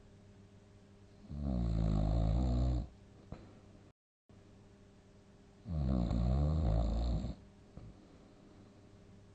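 Heavy snoring: two loud snores, each about a second and a half long and about four seconds apart, with a wavering pitch. The sleeper is quiet between them, and partway through there is a brief total dropout in the sound.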